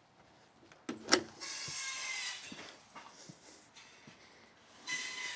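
A French door being handled and pulled shut: a sharp knock about a second in, then a rubbing scrape lasting about a second, and another scrape near the end.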